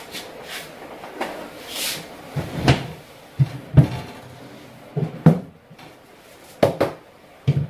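Kitchen wall-cabinet door being swung open and storage jars moved about on its shelf: a string of irregular knocks, clicks and thumps.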